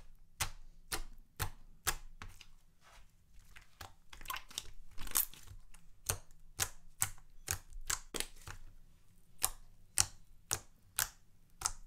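Hands pressing and squeezing a soft jiggly slime mixed with Model Magic and body lotion, making a string of sharp clicks and pops, roughly two a second and irregular, as air pockets squish out of it.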